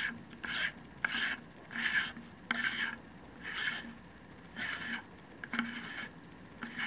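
Helical focuser of a Lunt 40mm solar telescope being unscrewed by hand from the telescope tube. Each twist of the hand gives a short rasping scrape, about one a second, from the threads and the knurled grip turning.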